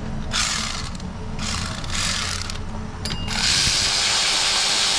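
Cordless ratchet spinning a power steering pump mounting bolt that keeps missing its threaded hole: two short runs, then a longer steady run from about three seconds in.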